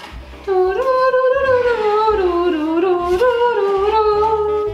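A person humming a wandering tune in one continuous hum that starts about half a second in and glides up and down in pitch.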